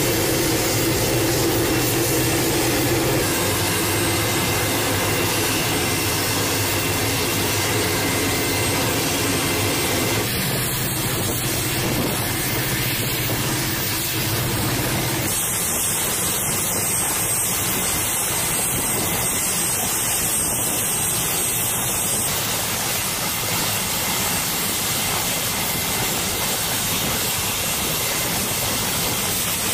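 MQ-8B Fire Scout unmanned helicopter's turboshaft engine running with its rotors turning: a steady turbine whine over a rushing noise. The sound changes abruptly twice, about ten and fifteen seconds in.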